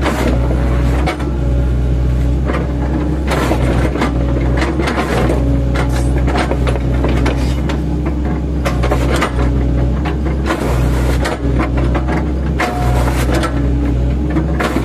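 An 8-ton class excavator's diesel engine running steadily under load, with irregular cracks and crunches as its bucket, fitted with chipping teeth, chops up oil palm trunks.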